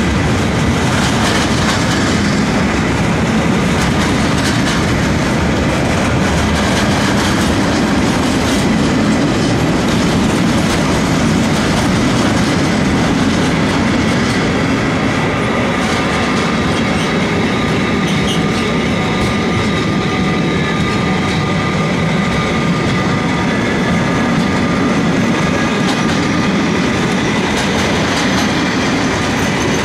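Freight wagons rolling past at speed: a steady rumble of steel wheels on rail, with clickety-clack over the rail joints and a faint high ringing note at times.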